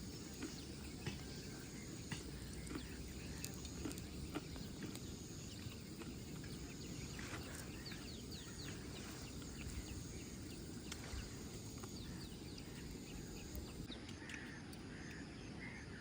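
Quiet outdoor ambience with a steady low hiss, faint bird chirps here and there, and scattered light clicks and taps.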